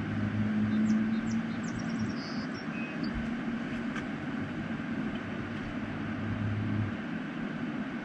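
A steady low engine-like hum over constant outdoor wind and water noise; the hum stops about seven seconds in. A few short, high chirps sound between about one and two and a half seconds in.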